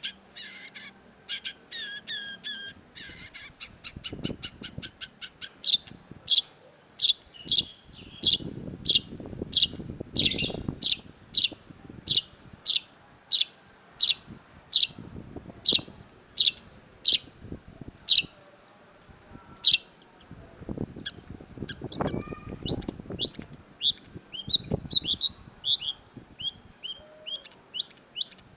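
Long-tailed shrike singing. A fast ticking rattle a few seconds in gives way to a long run of sharp, evenly spaced high notes, about one and a half a second. Near the end it breaks into a more varied, warbling run.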